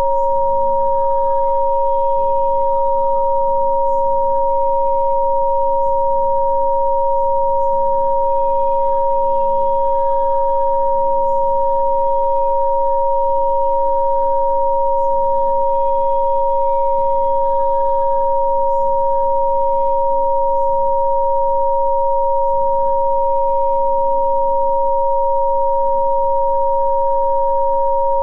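Two steady pure sine tones of a Rife frequency-therapy track, one higher than the other, held unchanging. Faint soft background music with slowly changing chords sits underneath.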